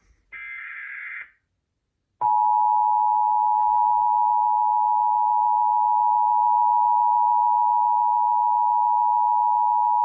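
Emergency Alert System signal on a weather radio: a final burst of the screeching SAME digital header lasts about a second, then after a short pause the loud, steady two-tone EAS attention signal sounds for about eight seconds.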